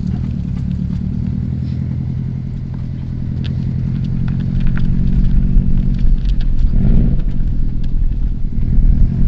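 Subaru WRX STI's turbocharged flat-four engine running at low speed while the car is steered to full lock, getting louder about halfway through. It is a check for tyre rub on freshly lowered coilovers, and no rubbing is heard.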